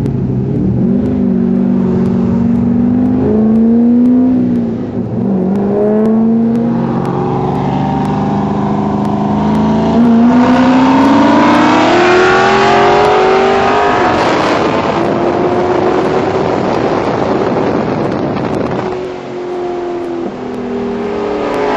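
Corvette Z06 V8 accelerating hard through the gears. The engine note climbs in pitch several times and drops back at each shift, then eases off near the end.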